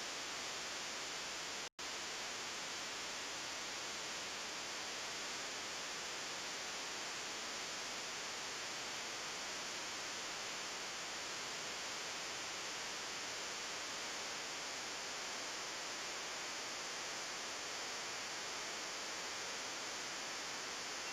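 Steady hiss of recording noise or static, brightest in the upper range, with a momentary dropout to silence about two seconds in.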